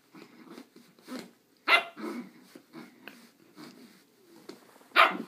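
Chihuahua puppy barking: two sharp yaps, about two seconds in and near the end, with softer low growling between them.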